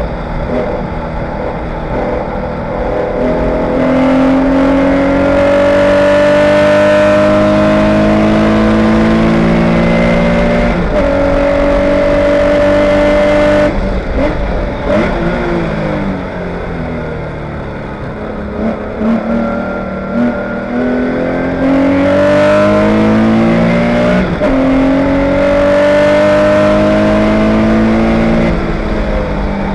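Air-cooled flat-six of a Spec911 Porsche 911 race car heard from inside the cabin, running at racing load: it pulls up through the gears with its pitch rising and dropping back at each upshift. About halfway through it comes off the throttle for braking and downshifts, then pulls up through the gears again.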